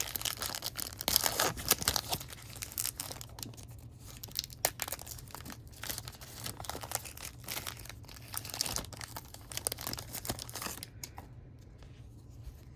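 A 2015 Topps Fire trading card pack wrapper being torn open and crinkled in the hands, a dense crackling that dies down about two seconds before the end.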